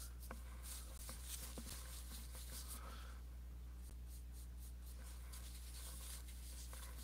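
Faint, irregular scratchy strokes of a paintbrush laying oil paint onto a portrait painting, over a steady low hum.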